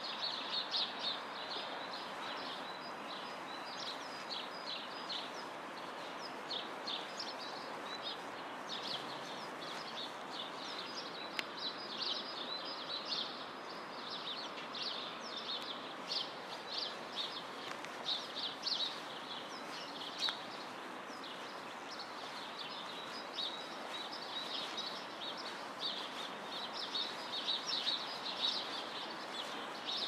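Many small birds chirping in quick, dense bursts, busiest near the start and again near the end, over a steady background hum of distant city noise.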